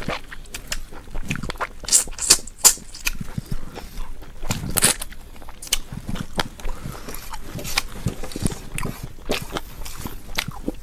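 A person eating close to the microphone: irregular chewing and smacking with sharp clicks and crunches, the loudest a few quick snaps about two seconds in.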